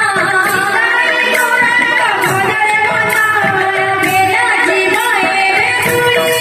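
Odia devotional kirtan song: a woman's voice singing a melody of held, gliding notes, with hand-played barrel drums beating along.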